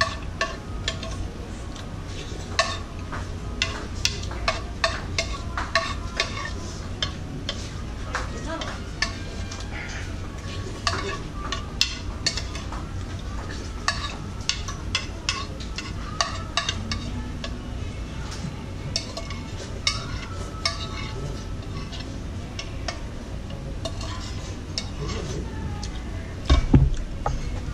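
Broth being drunk straight from a large jumbo-ramen bowl: many short irregular slurps and gulps, then a loud thump near the end as the heavy bowl is set down on the table.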